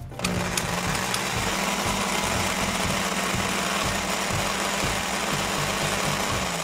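Toy blender's small motor running with a steady buzzing hum as its blades spin. It starts just after the beginning and stops near the end.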